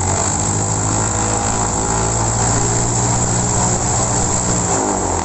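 Cessna 150M's four-cylinder Continental O-200 engine and propeller running with a steady drone, its pitch shifting briefly near the end.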